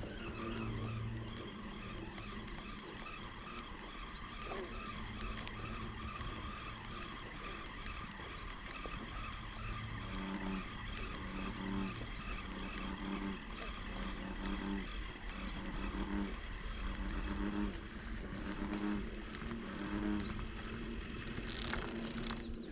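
Spinning reel being cranked to retrieve a lure: a steady whirring of the reel's gears, pulsing evenly at a little over once a second from about halfway through.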